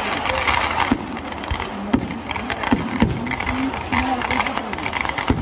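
Fireworks going off: several sharp bangs at irregular intervals, the loudest about a second, two, three and five seconds in, with a dense crackle of smaller reports between them.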